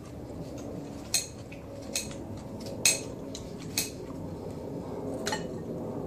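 A knife clinking against a plate about five times, spaced a second or so apart, as pear is cut into pieces on it.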